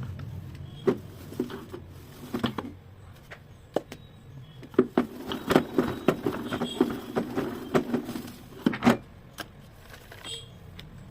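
Irregular clicks and knocks of plastic parts from a spin mop's spinner mechanism being handled, scattered at first and coming thick and fast from about five to nine seconds in.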